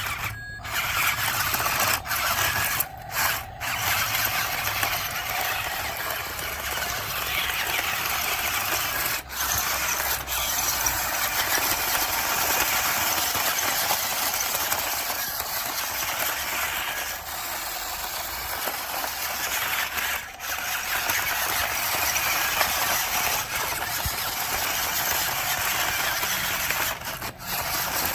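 Radio-controlled truck's small electric motor and gearbox whining steadily as it drives loaded. The sound cuts out briefly a few times where the motor stops for a moment.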